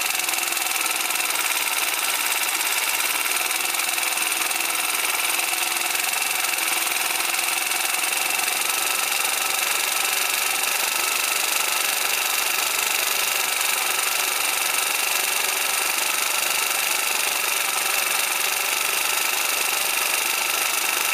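Rex RS 450 scooter's single-cylinder four-stroke engine idling steadily as the carburettor's idle air-mixture screw is slowly turned back out to set the idle mixture.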